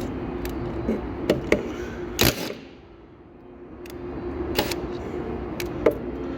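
Hand tools clicking and knocking on metal, a handful of sharp taps with one louder knock a couple of seconds in, while bolts are being worked loose. A steady low hum runs underneath; it fades for about a second and then comes back.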